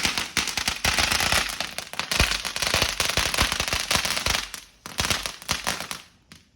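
A firework going off as a rapid, dense string of sharp pops and crackles, like a string of firecrackers. It fades about four and a half seconds in, flares again briefly, and stops about a second later.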